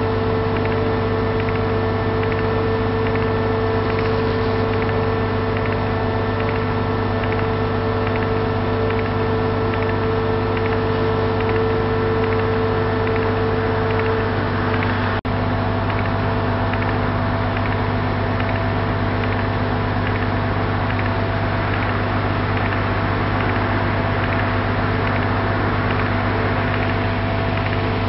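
Heavy machinery running with a steady, even hum. A brief dropout about halfway through, after which the hum's tone changes slightly.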